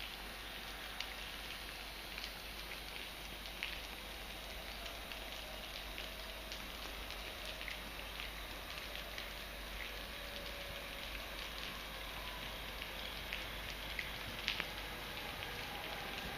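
Steady rain falling, with scattered sharp ticks of individual drops landing.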